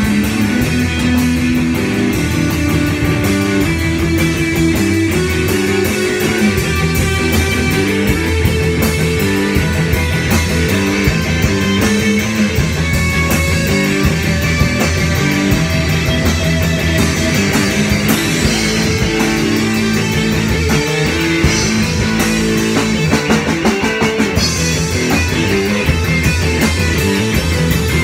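Live rock-blues jam played loud: electric guitars through amplifiers over a drum kit with steady cymbal work.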